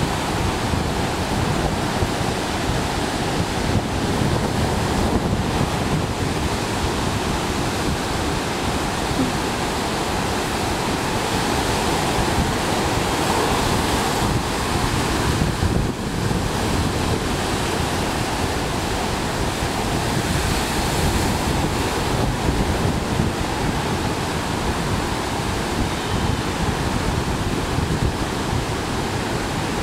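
Ocean surf breaking and washing in without a break, with gusty wind buffeting the microphone.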